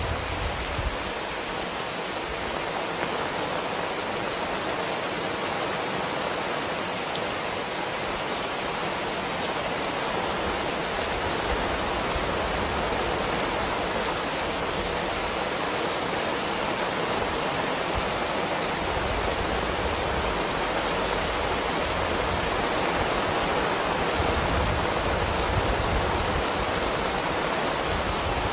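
Steady rain falling, an even rushing hiss with no birdsong heard.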